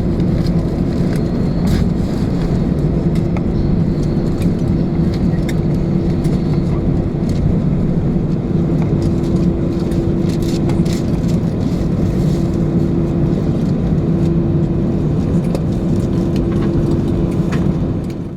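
Airbus A320 cabin noise as the airliner taxis in after landing: a steady hum with two low steady tones, and a few light clicks.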